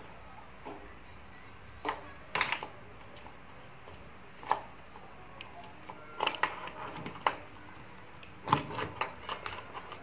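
Plastic wire-harness connectors being pushed into their sockets on a Samsung washing machine's control board, with wires rubbing on the plastic panel: irregular clicks and short rustles, in clusters about two, four and a half, six to seven, and eight and a half seconds in.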